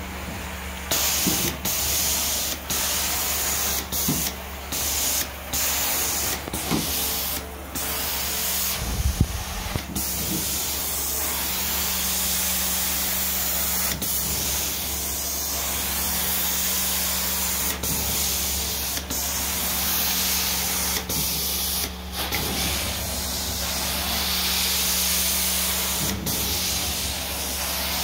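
Carpet-cleaning extraction wand passing over carpet: a steady high hiss of spray and suction over the low hum of the cleaning machine. The hiss breaks off briefly several times in the first several seconds, and there is a louder jolt about nine seconds in.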